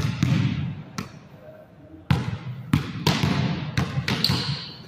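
Volleyball being hit and striking the floor of a gym hall: a series of irregular sharp smacks, each trailing a short hall echo, with voices in the background.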